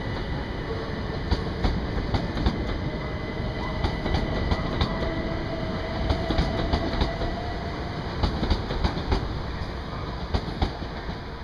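A Class 377 Electrostar electric multiple unit pulls away and runs past, with a steady rumble and the irregular clicking of its wheels over rail joints. The sound eases off near the end as the last coaches go by.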